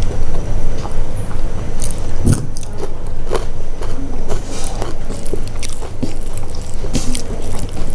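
Close-miked eating sounds: chewing and biting with irregular wet mouth clicks and smacks, over a steady low hum.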